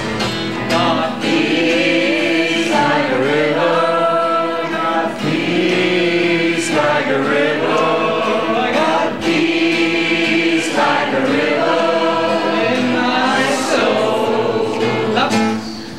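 A group of people singing together in chorus, in sustained phrases a few seconds long with short breaks between them.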